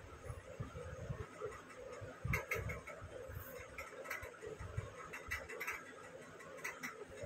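Irregular soft clicks and low thumps of handling noise as fingers hold and turn a rough stone close to the phone's microphone.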